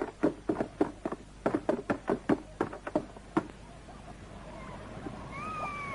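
Quick footsteps running down stairs, about four steps a second, stopping about three and a half seconds in. Near the end an animal gives a high call that rises briefly and then falls.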